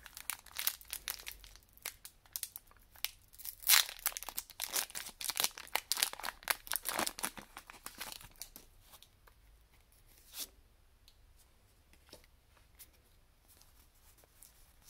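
Foil wrapper of a Pokémon card booster pack being torn open and crinkled, a dense crackling rustle for about eight seconds. It then thins to occasional faint clicks as the pack is handled.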